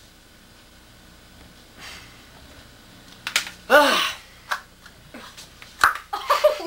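Quiet small-room tone for about three seconds, then a short vocal exclamation whose pitch rises and falls, a sharp knock, and a few words near the end.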